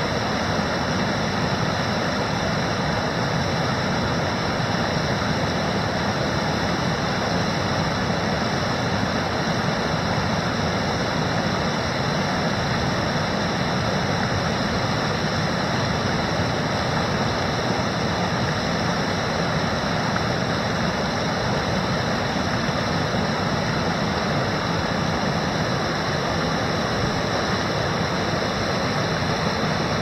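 Low river waterfall, white water pouring over a rock ledge, rushing steadily and evenly without a break.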